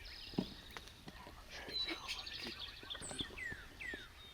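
Songbirds singing and chirping, with a high trill and two or three quick downward-sliding calls near the middle, over faint rustling and small clicks, with a soft knock about half a second in.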